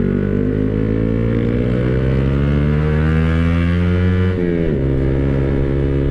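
Yamaha motorcycle engine pulling hard in gear, its pitch rising steadily. About four seconds in it drops sharply at an upshift, then pulls on.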